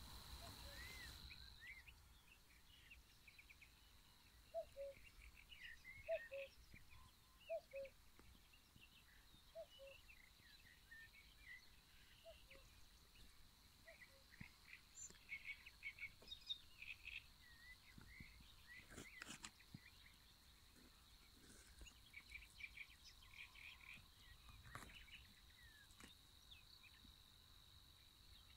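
Faint chorus of songbirds chirping and trilling, with a steady high-pitched tone beneath and a few lower paired calls in the first third.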